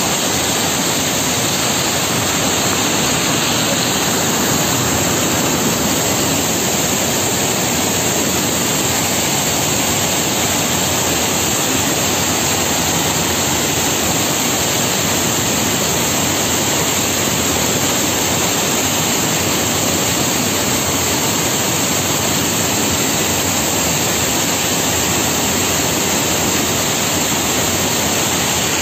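Steady, unbroken rush of water from a spring in flood after heavy rain, flowing hard and without a pause.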